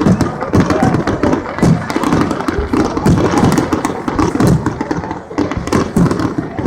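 Many fireworks going off at once: a continuous, overlapping stream of bangs, thuds and crackles.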